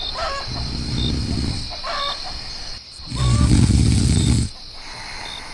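Cartoon snoring sound effect: two low, rattling snores about three seconds apart, with short higher whistling sounds between them, over the steady chirping of crickets.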